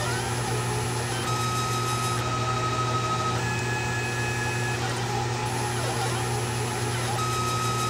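Stepper motors of a Proxxon MF70 CNC milling machine whining as they drive a marker attachment through a drawing, the whine jumping between a few steady pitches every second or two as the axes change speed and direction. A steady low hum runs underneath.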